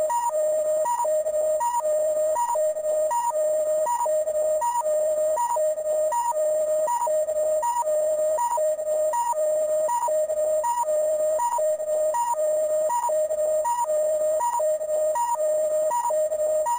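Electronic sound from the Zoffy Key toy: a looping two-note beep, a longer lower tone then a short higher one, repeating about four times every three seconds.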